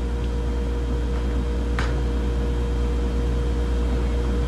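Steady hum and hiss of a running electric appliance with a fan, holding one pitch throughout, with a faint click about two seconds in.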